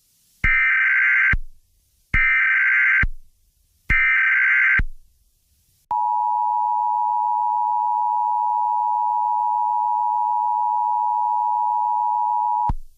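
Emergency Alert System opening: three SAME header data bursts, each about a second long, then the EAS two-tone attention signal (853 and 960 Hz) held steady for about seven seconds before cutting off.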